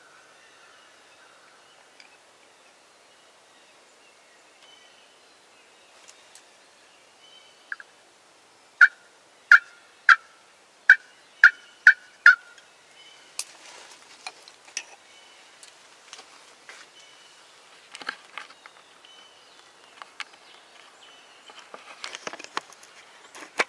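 Turkey yelping: a run of about seven loud, evenly spaced notes, about two a second, starting about nine seconds in. Scattered soft clicks and rustling follow near the end.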